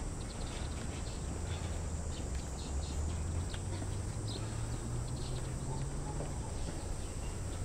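Outdoor ambience: a steady high insect drone with faint bird chirps scattered through it, over a low steady hum.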